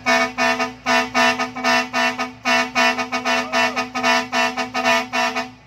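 Vehicle air horns blown in a fast rhythmic pattern, about four to five short blasts a second over a steady held lower horn tone, played to the beat of a song; they stop abruptly near the end.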